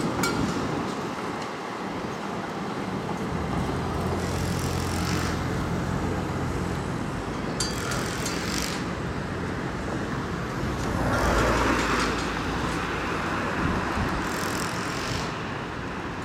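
Street traffic: an articulated Amsterdam tram rolling away and fading, under the steady noise of buses and cars. A louder rush from a passing vehicle comes about two-thirds of the way through.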